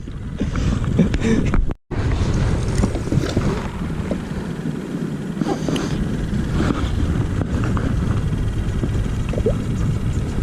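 Wind rumbling on the microphone over choppy sea water lapping and splashing against a kayak, with small knocks scattered through. The sound cuts out for a moment about two seconds in.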